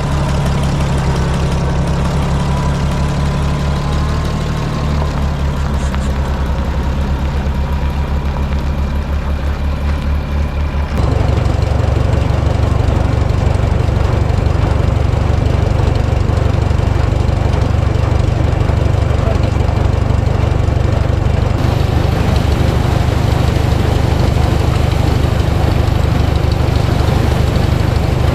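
Old farm tractor engine running steadily with an even low pulse; the sound changes abruptly about eleven seconds in and becomes louder.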